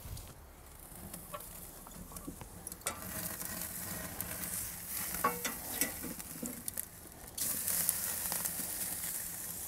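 A beef roast searing on the hot grate of a charcoal-fired Big Green Egg, sizzling, with a few light clicks. The sizzle swells about three seconds in and grows louder again near the end.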